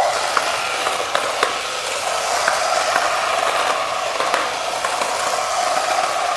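Wing Control Dusty Crophopper toy plane making its engine noise after calling "Full power!": a steady mechanical whir with a few light clicks.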